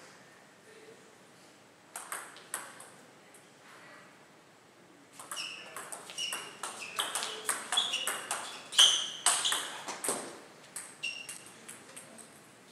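Table tennis ball struck back and forth by bats and bouncing on the table in a quick rally, a rapid run of sharp clicks and ringing pings lasting about five seconds. A few lone ball bounces come about two seconds in and again just after the rally ends.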